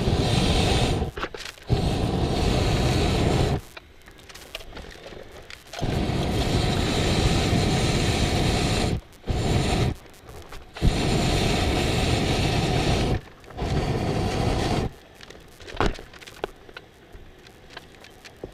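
Propane burner of a large hot-air balloon firing in repeated blasts: six blasts in about fifteen seconds, each half a second to three seconds long, each starting and stopping sharply with short quiet gaps between.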